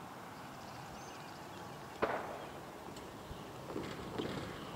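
Trackside outdoor background hum, broken about two seconds in by a single sharp knock, then scattered irregular clicks and pops that grow more frequent toward the end, with a few faint high chirps.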